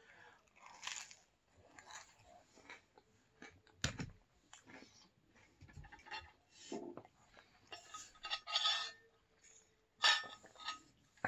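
Close-up chewing of crispy pizza, broken by light clinks and knocks of tableware, with a sharp knock about four seconds in. Near the end come sips from a cup.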